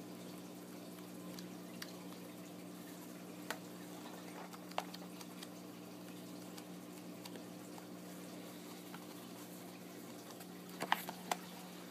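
Pages of a paperback guidebook being turned by hand: soft paper rustles and a few small crackles and clicks, the loudest cluster about eleven seconds in. A steady low hum runs underneath.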